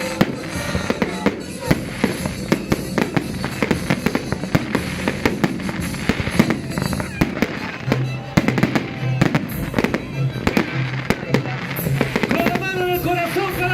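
New Year fireworks and firecrackers going off in quick, irregular bangs and cracks, many overlapping, with music playing underneath.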